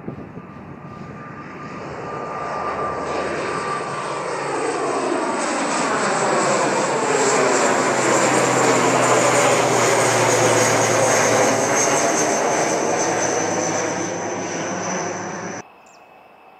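ATR 72 twin-turboprop airliner climbing out after takeoff and passing overhead. Its propeller drone and turbine whine grow louder to a peak in the middle, and the high whine slides down in pitch as it passes. The sound cuts off abruptly near the end.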